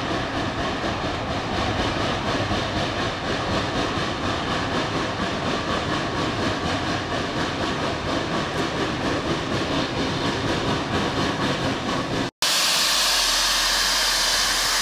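A Shay geared steam locomotive working hard upgrade, with rapid exhaust beats and the rumble of the open cars rolling behind it. About 12 seconds in the sound cuts off abruptly and is replaced by a loud, steady hiss of steam venting from a standing geared steam locomotive.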